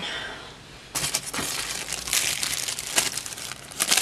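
Plastic zip-top bag crinkling and foam packing peanuts rustling as a bag is lifted out of a packed box, starting about a second in as dense crackly rustling.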